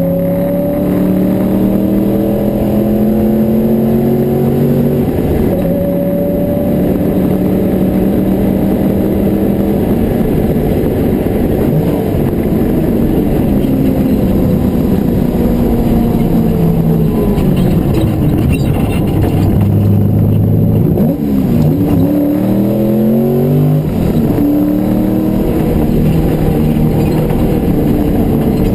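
Porsche 928's front-mounted V8 heard from inside the cabin at racing speed, climbing in pitch through the gears with a drop at a shift about five seconds in. Past the middle the revs fall away as the car slows, with a few quick up-and-down swings in pitch, then climb again toward the end.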